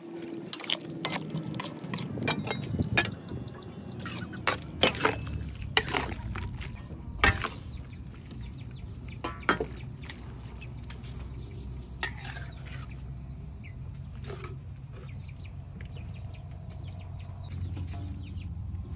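Metal spatula stirring and scraping in a steel wok of wet stir-fry and clinking against its sides, then scooping food onto a plate. The clinks come thick and fast for the first seven seconds or so, then only now and then.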